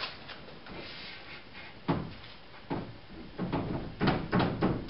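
Hollow knocks and bumps from the truck cap and its wooden 2x4 supports being handled and shifted into position: two single knocks about two seconds in and a second later, then a quick run of knocks, about four a second, near the end.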